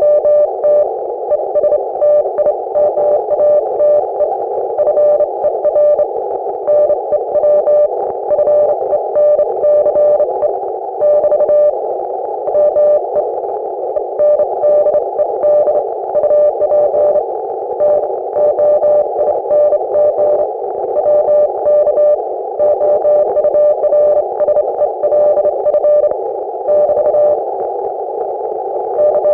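Morse code (CW) received on an Icom IC-718 HF transceiver: a single steady beep tone keyed on and off in rapid dots and dashes, with short pauses between words, over a steady hiss of band noise.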